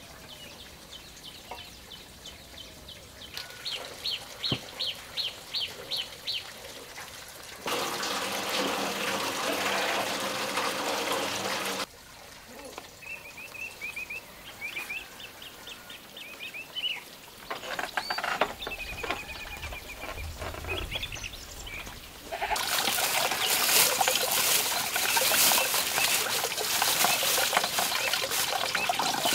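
Short rising bird chirps repeated about three times a second, with a stretch of steady noise in between, then water running and splashing steadily for the last several seconds.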